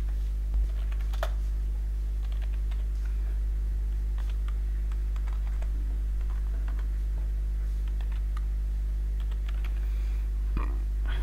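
Typing on a computer keyboard: irregular, scattered keystrokes entering a line of text. A steady low electrical hum runs underneath.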